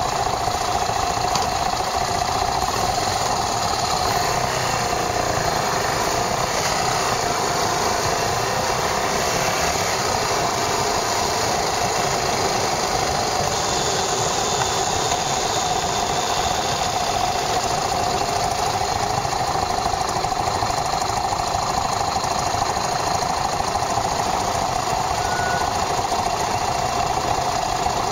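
Yamaha SRX400's single-cylinder four-stroke engine running steadily, heard from a camera mounted on the motorcycle, with no revving up or down.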